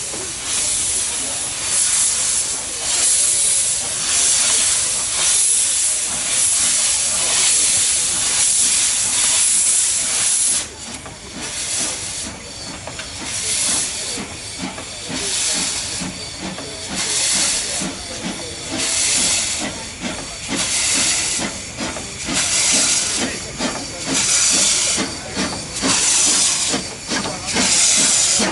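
Narrow-gauge steam locomotive letting off steam: a loud, steady hiss for about the first ten seconds, then the hiss drops and breaks into a steady rhythm of puffs.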